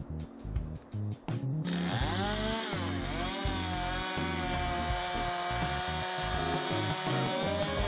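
Stihl chainsaw coming in about a second and a half in and rip-cutting lengthwise along a log; its engine note dips once as the chain bites, then holds steady under load. Background music with a beat plays throughout.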